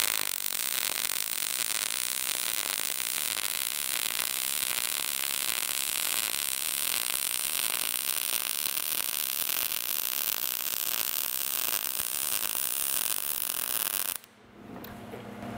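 Short-circuit MIG welding arc crackling steadily while a horizontal fillet weld is run on 10-gauge steel at 18.2 volts and 225 wire feed speed; the arc stops abruptly near the end. By ear the welder judges this setting fine, though it could take a little more wire feed speed.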